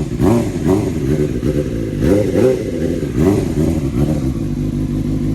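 Suzuki GSX-R750's inline-four engine running, blipped up in revs several times in the first few seconds and then settling into a steady idle. It is being run to warm the oil before an oil change.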